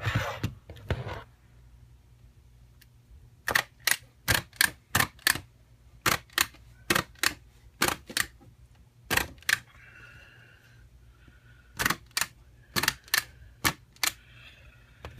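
Plier staplers driving staples through thick cardboard sheets: handling rustle at first, then from a few seconds in a long series of sharp snapping clicks, often in quick pairs, with short pauses between.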